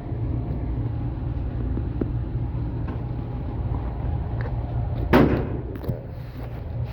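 A single gunshot about five seconds in, sharp, with a short ringing tail, over a steady low rumble.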